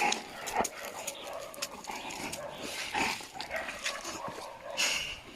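Dogs making faint sounds, with scattered small knocks and rustles.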